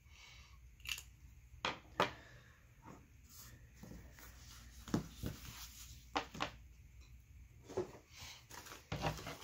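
Scattered light taps, clicks and paper rustles from desk crafting: a craft knife trimming washi tape on a planner page and a sticker sheet being handled and laid down.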